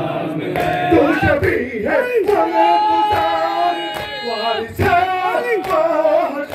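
Voices singing a nohay, a Shia Muharram lament, in long held phrases. Regular chest-beating (matam) thumps fall about once a second under the singing.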